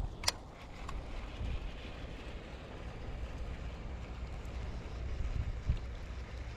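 Wind buffeting the microphone, a low, uneven rumble, with one sharp click under half a second in.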